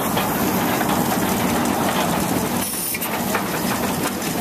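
Machinery running steadily with a fast, even clatter.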